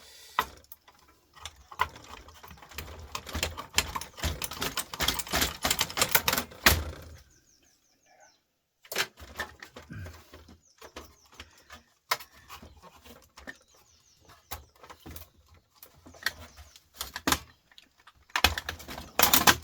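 Rapid clicking and rattling of small metal parts as a CD changer is unscrewed and pulled apart by hand. The clicking is dense for about the first seven seconds, stops briefly, then comes back as scattered separate clicks.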